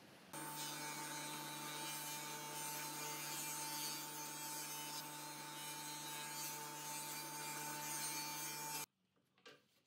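Table saw running as a plywood panel is fed through it with a push block: a steady hum with a high tone, cut off suddenly near the end.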